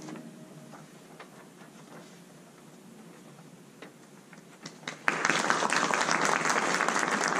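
The last held notes of the music stop, leaving a few seconds of hushed room with a few stray claps; then the audience breaks into applause about five seconds in.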